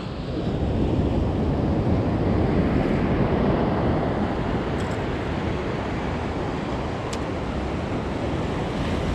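Sea surf breaking and washing over the rocks of a breakwater, a steady rushing wash, with wind buffeting the microphone. Two faint ticks, about five and seven seconds in.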